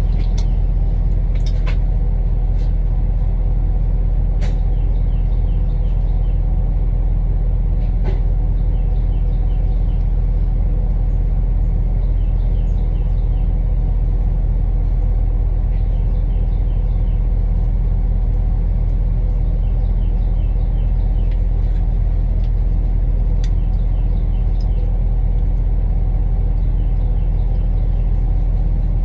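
A steady, loud, low engine-like rumble runs unbroken, with a few faint clicks from handling the wiring now and then.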